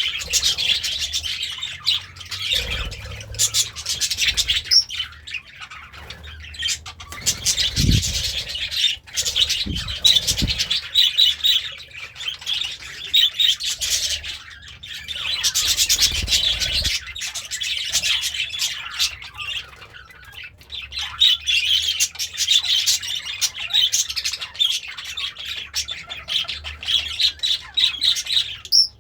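Pet budgerigar warbling: a continuous fast chatter of chirps and scratchy squawks, with a few dull low thumps partway through.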